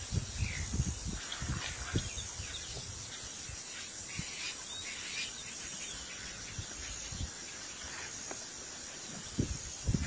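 Bush ambience: a steady hiss of insects with faint bird chirps, broken by low rumbling bursts in the first two seconds and again near the end.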